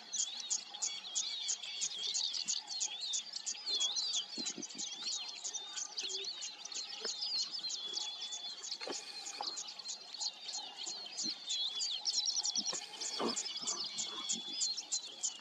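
Dense chorus of birds chirping and whistling, with rapid repeated chirps and short rising and falling whistles throughout. A few faint low snaps come through now and then.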